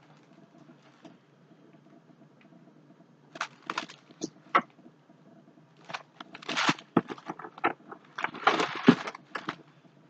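Handling noises from unpacking merchandise: rustling and crinkling of packaging in scattered short bursts and clicks, starting about three seconds in.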